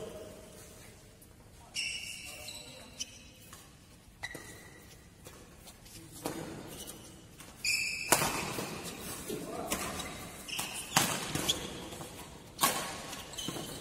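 Badminton rackets smacking a shuttlecock in a doubles rally, sharp hits a second or two apart that grow louder and more frequent in the second half, with shoe squeaks on the court floor ringing in the hall.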